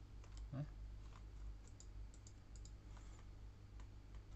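Faint, irregular clicks of a computer mouse and keyboard in use, over a low steady hum.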